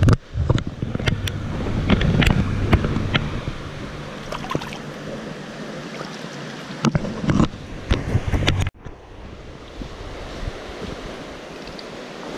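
River water rushing and splashing close to the microphone while a smallmouth bass is handled in the shallows, with wind buffeting the microphone and scattered sharp splashes and knocks. About nine seconds in the level drops abruptly to a steadier, quieter rush of river water.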